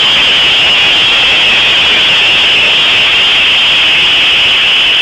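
Zipline trolley pulleys running fast along the steel cable, making a loud, steady, high whir.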